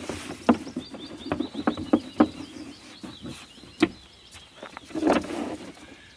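A small bird chirping in a rapid run of high notes for a few seconds, over scattered knocks and clatter.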